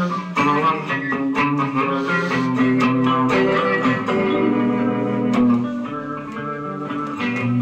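Instrumental break in a blues song, guitar-led, with plucked notes over sustained low notes and no singing.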